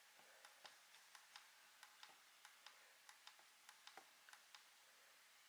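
Faint small clicks of a red dot sight's buttons being pressed repeatedly, a few a second, to cycle its reticle setting and brightness; they stop a little before the end.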